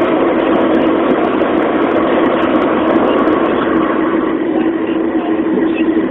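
Steady road noise inside a car cruising on a highway: tyre and engine drone with a steady hum running through it.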